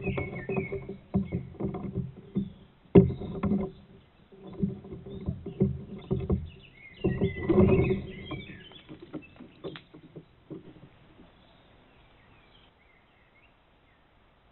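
A crow splashing and knocking about in the shallow water at the pond's edge, in bursts of sharp knocks and sloshing that die away about ten seconds in.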